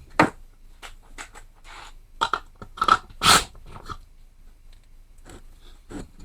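Irregular clicks, knocks and clinks of hand tools and loose parts on a small lawnmower engine being taken apart, about ten sharp strikes with the loudest about three seconds in.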